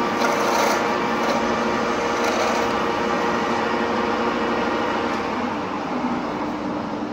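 Lathe running steadily with a constant motor hum, and a brighter scraping hiss in the first couple of seconds as it machines.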